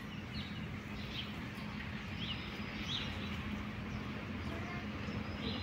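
Birds chirping now and then, five or so short high calls over a steady low hum of background noise.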